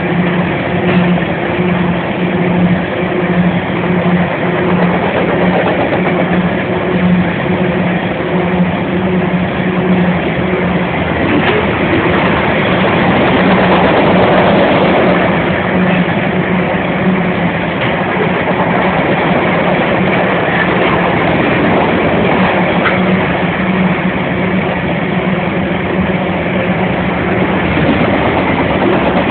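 CSX grain train's SD60 and C40-8W diesel locomotives running with a steady low engine drone, while the train's cars roll by on the rails, louder around the middle.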